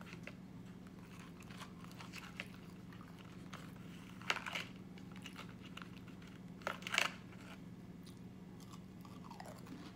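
A person chewing and crunching Pringles potato crisps, with two louder crunchy bites about four and seven seconds in, over a low steady hum.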